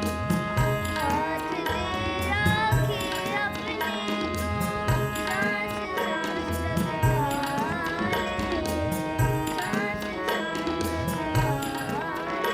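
Devotional singing in the style of a Shabad, with tabla strokes keeping a steady rhythm under a sustained held chord.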